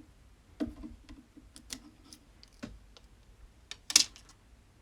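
Irregular light clicks and taps, about eight of them spread unevenly, the sharpest about four seconds in.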